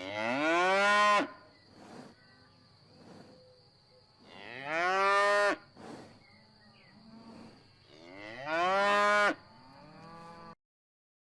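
Cow mooing three times, about four seconds apart, each moo a long call that rises in pitch, with quieter lowing in between. A faint steady high tone runs underneath.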